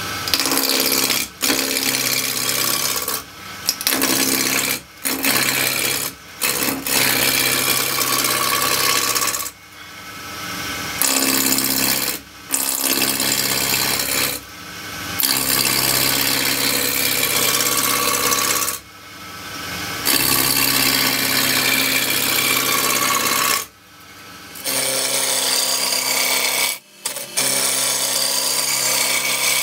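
Roughing gouge cutting a spinning spindle blank on a wood lathe, taking it from square toward round: a loud, rough, noisy cutting sound over the lathe's steady low hum. It comes in passes of one to several seconds, broken by short breaks where the tool comes off the wood.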